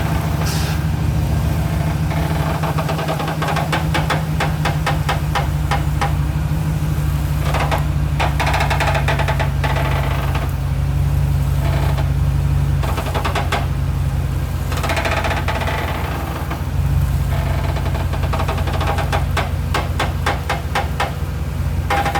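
Front suspension of a lifted 2012 Chevrolet Silverado 1500 4x4 creaking loudly in repeated bouts of rapid clicks as the steering wheel is turned left and right, over the engine idling. The creak comes from control arm bolts worked loose at the crossmember; tightening them stopped it.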